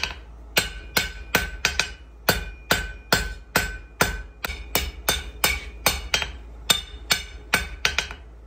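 Hand hammer striking red-hot steel bar stock on an anvil in a steady run of blows, about three a second, each with a short bright ring from the anvil. The blacksmith is drawing the hot steel out to length for a hook.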